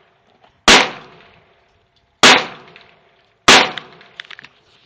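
Three gunshots about a second and a half apart, each with a short echoing tail, followed by a few faint clicks.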